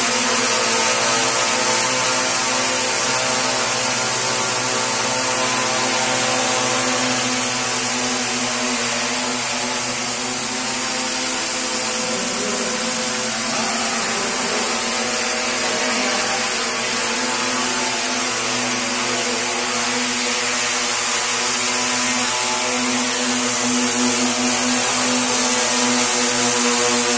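Quadcopter's four brushless motors and propellers, driven by prototype electronic speed controllers under test, running with a steady multi-tone hum. The pitch wavers a little around the middle.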